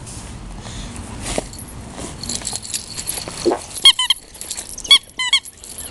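A plush squeaky toy squeaking in short high chirps as a small dog bites and tugs on it. The squeaks come in three quick groups in the second half, over the rustle and jingle of the tug.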